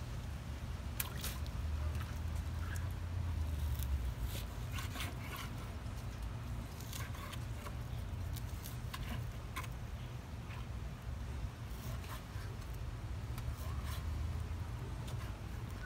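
Kitchen knife cutting raw wild pork on a wooden cutting board: irregular taps and scrapes of the blade through the meat and against the board, over a steady low rumble.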